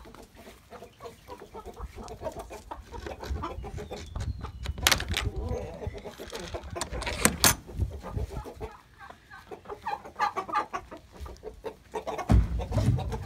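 Chickens clucking, with a couple of sharp clicks about five and seven seconds in and a low thump near the end.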